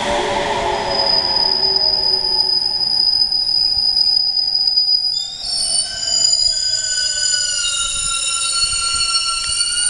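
JR Kyushu 821 and 817 series electric train slowing to a stop at a platform. A falling motor whine fades early on, a single high squeal sets in about a second in, and from about halfway several shrill overlapping squeals sound together as the brakes bring the train to a halt.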